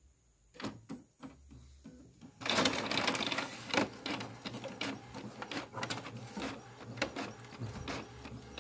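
Epson L360 inkjet all-in-one printer making a copy: a few clicks and a low hum at first, then from about two and a half seconds in, steady mechanical whirring and rapid clicking as the paper feeds and the print head runs.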